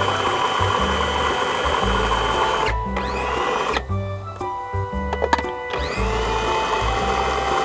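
Electric food processor running as it purées chopped apple and onion, under background music. The motor cuts out a little under three seconds in, spinning down, and starts up again about three seconds later.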